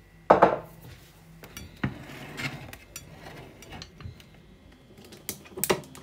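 Kitchen clatter of dishware and utensils against a ceramic plate while food is served: a loud knock about a third of a second in, another a little later, some scraping, then a couple of sharp clinks near the end.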